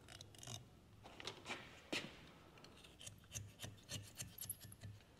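Metal pick scraping and scratching inside a John Deere 8335R's Vari-Cool fan drive hub, cleaning it out; faint, irregular short scrapes with a dentist-like sound.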